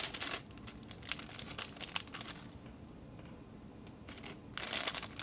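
Plastic bags of building-block pieces crinkling as they are handled, with a few small clicks. The crinkling dies down in the middle and picks up again near the end.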